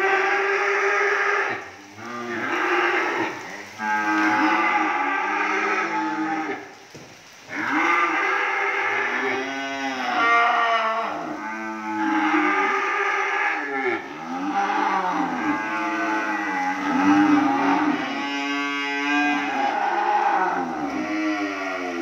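Several cattle mooing over and over, long arched calls that overlap one another, with brief pauses about two seconds in and around seven seconds in.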